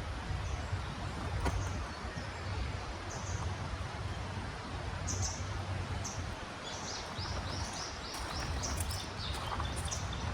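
Wild songbirds chirping outdoors over a steady background rush. In the second half, one bird gives a quick run of about eight repeated chirps.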